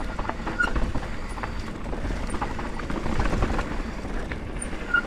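Mountain bike riding down a rough dirt trail: tyres rolling over dirt and stones with the bike clattering in many small knocks over a steady low rumble.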